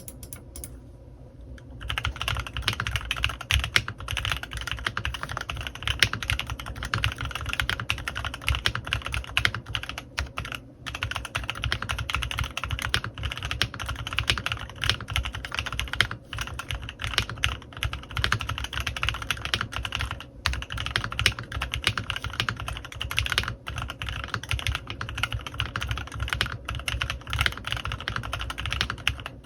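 Fast continuous typing on a CannonKeys Rekt1800 custom mechanical keyboard with lubed Kailh x Swagkeys Lavender switches and PBT keycaps, starting about two seconds in, with a few short pauses.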